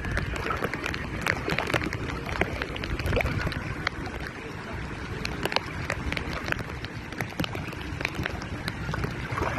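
Water at the beach: many small, sharp splash and drop ticks over a steady low rumble.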